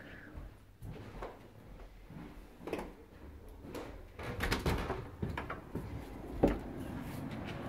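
Clicks and knocks of a metal-framed glass door being unlatched by its lever handle and opened, the sharpest knock about six and a half seconds in. A steady noise from outside comes up near the end as the door stands open.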